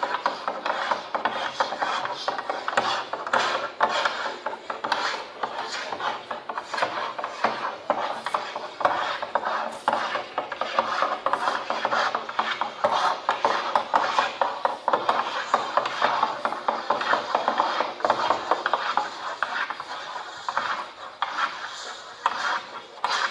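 Electronically amplified mark-making: several drawing tools scratching repeatedly along a long sheet of paper, giving a dense, continuous rasp of many overlapping strokes.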